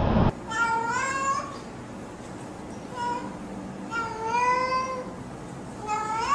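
A domestic cat meows four times: a long meow, a short one, another long one, and one rising at the end. At the very start, another cat's louder meow breaks off abruptly.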